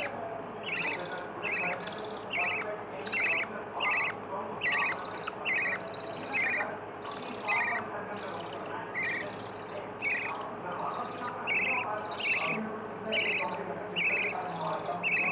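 Lovebird chicks, three days old, giving repeated short raspy begging chirps, about one and a half a second, over a faint steady hum.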